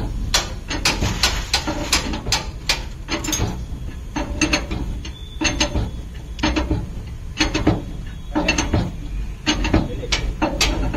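Sharp metallic clicks and clanks, irregular at about two a second, of a mechanic working a jack and hand tools under a truck's chassis while taking off its leaf springs.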